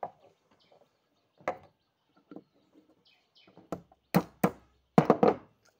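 Light clicks of small metal tools, then five sharp knocks on a decapping punch set in a fired 12-gauge shotgun shell, driving out the spent primer.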